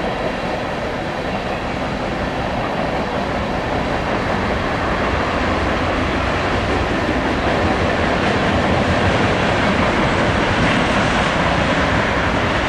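Tank cars of a long freight train rolling past, a steady noise of steel wheels on the rails, growing a little louder about halfway through.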